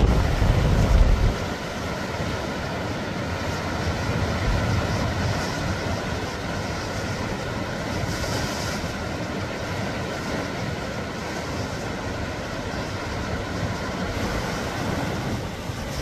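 Rough sea surf breaking and washing around rocks, a steady rush of water noise. Strong wind buffets the microphone with a low rumble for the first second or so.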